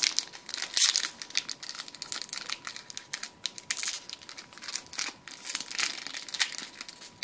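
Foil wrapper of a Pokémon Plasma Blast booster pack crinkling as hands work to tear it open: a rapid, irregular run of crackles.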